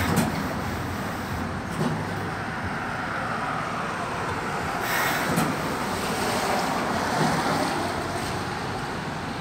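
Laundry steam garment press at work: a steady rushing background with a short hiss of steam right at the start and another about five seconds in, plus a few faint knocks.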